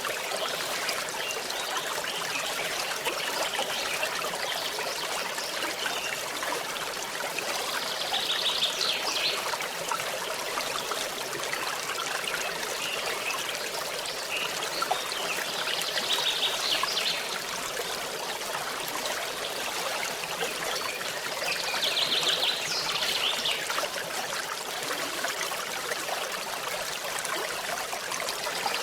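A forest stream trickling and flowing steadily. A short high trill recurs about four times, every six or seven seconds.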